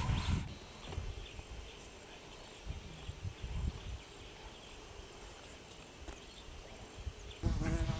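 Quiet bush ambience: a few bird chirps fade out in the first half second, then a faint background with a few low bumps. About seven and a half seconds in, a louder buzzing with a wavering pitch starts.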